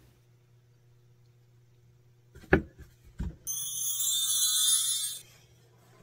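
A magic twinkle sound effect: a bright, shimmering, bell-like chime lasting just under two seconds, starting about three and a half seconds in, led in by two short sharp pops a little before it.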